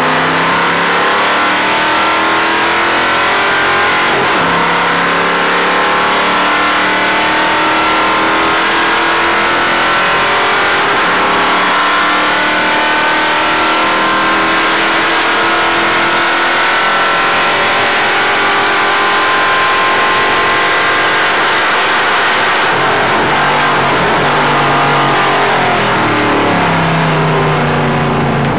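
Stock car racing engine heard from inside the cockpit, running loud at high revs under full throttle. Its pitch climbs slowly for most of the stretch, then falls and steps back up in short jumps near the end, as with downshifts.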